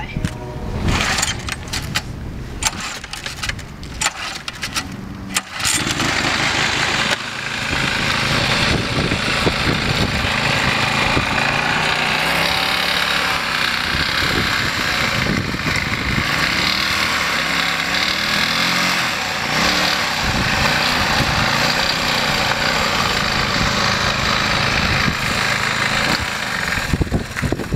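Walk-behind lawn mower's small single-cylinder engine being pull-started: a few seconds of rope pulls and sputtering, then it catches and runs steadily, its pitch wavering as it drives the mower along, and dies down near the end.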